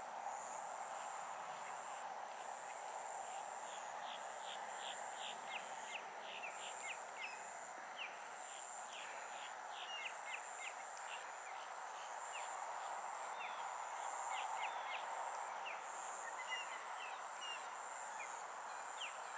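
Outdoor ambience of insects trilling at a high pitch, the trill coming and going, with many quick high chirps of small birds scattered through it over a steady hiss.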